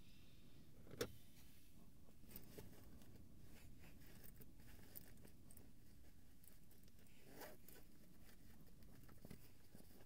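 Near silence in a car interior: faint clicks and rustles of hands handling small objects, with one sharper click about a second in, over a low steady rumble.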